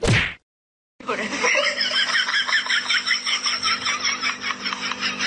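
A short, loud burst as the roller-skater hits the pavement. About a second later, laughter starts and carries on, pulsing about five times a second.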